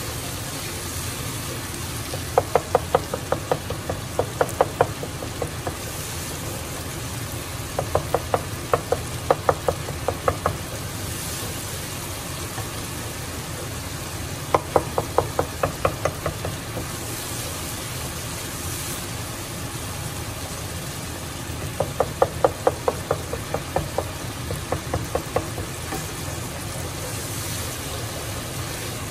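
Wooden spoon knocking and scraping against the sides of a granite-coated cooking pot while a frying onion-and-tomato base is stirred, in four runs of quick taps, about four a second. A steady low hum runs underneath.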